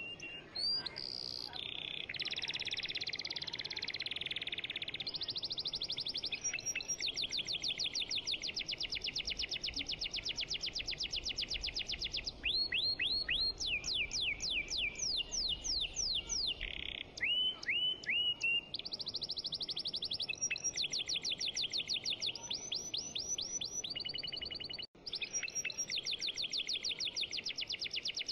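A songbird singing in long, fast trills of repeated high chirps, switching between phrases, with some runs of sweeping whistles that fall in pitch.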